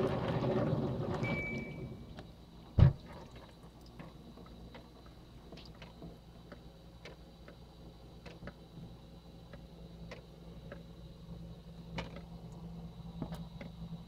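Countertop dishwasher: water spraying inside stops about two seconds in, a short beep sounds from the control panel as its start/pause button is pressed, and then a sharp click comes. After that the machine hums low and steady, with scattered faint ticks.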